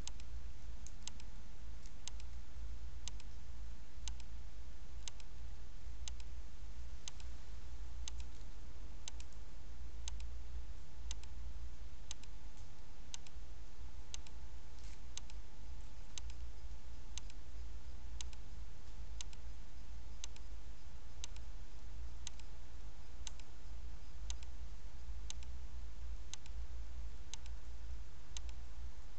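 A sharp tick about once a second, evenly spaced like a clock, over a steady low hum.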